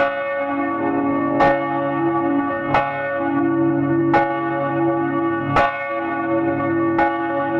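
Church bell ringing: six evenly spaced strokes, about one every second and a half, each ringing on and overlapping the next.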